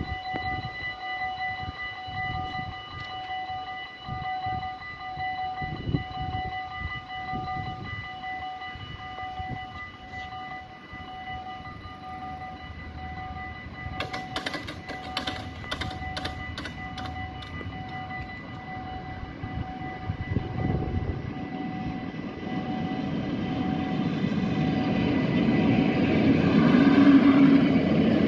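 Level-crossing electronic bells ringing steadily in a pulsing pattern, then a Plan U diesel-electric railcar approaching, its engine and wheel rumble growing steadily louder over the last several seconds.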